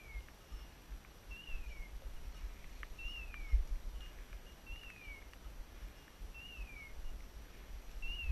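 Hunting dog's beeper collar sounding its point-mode signal, a short falling hawk-like cry repeated evenly about every 1.7 seconds, marking the dog on point. Beneath it are the low thumps of footsteps through brush.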